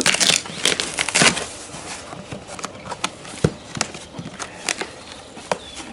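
Cardboard box being opened by hand: a loud stretch of tape tearing and cardboard scraping in the first second or so, then quieter scattered rustles and clicks as the flaps are folded back.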